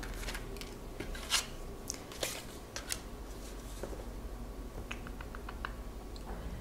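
Tarot cards being handled on a table: scattered soft taps and rubs as cards are drawn and laid down, then a quick run of small clicks about five seconds in as the deck is shuffled between the hands.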